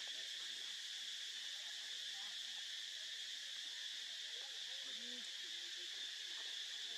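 Steady, high-pitched drone of an insect chorus, unbroken and even throughout.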